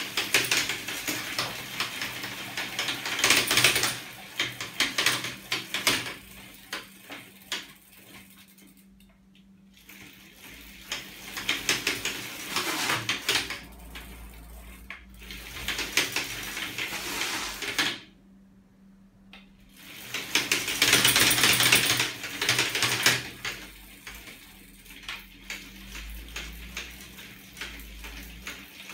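Rapid metallic clattering and clicking from a homemade aluminium linkage mechanism with magnets that drives a bicycle's rear wheel. It comes in surges a few seconds long with short lulls between.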